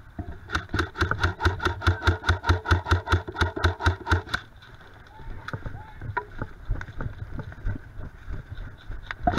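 Airsoft rifle firing a steady string of about twenty shots, around five a second, for about four seconds, starting about half a second in; scattered quieter clicks follow.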